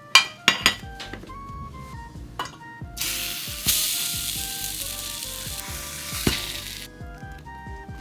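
A few sharp clicks and clatters, then about three seconds in a loud frying sizzle starts suddenly and runs for about four seconds: toast frying in a hot pan. Soft background music plays throughout.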